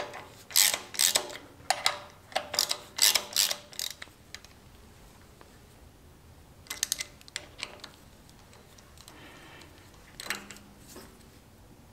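Hand ratchet clicking in four short runs, with a pause in the middle, as it tightens the bolts of a repair-sleeve installer tool that presses a sleeve onto the front of a Cummins 5.9 crankshaft.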